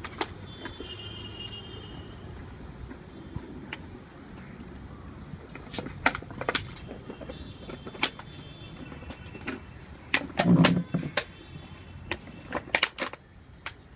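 Drink bottle crackling and clattering as dogs play with it: irregular sharp clicks and crunches in clusters, the loudest burst a little past the middle.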